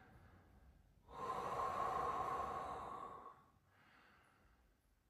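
One long audible breath by a man lying on his back on a yoga mat, a soft airy hiss lasting about two seconds that starts about a second in and fades out.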